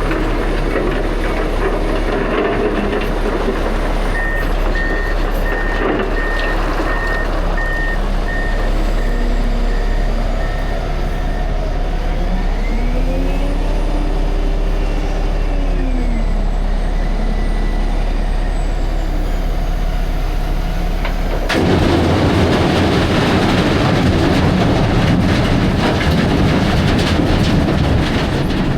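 Dump truck engine running, with a backup alarm beeping steadily for several seconds and the engine pitch rising and falling once. About three-quarters of the way through, the sound jumps abruptly to a louder rushing noise.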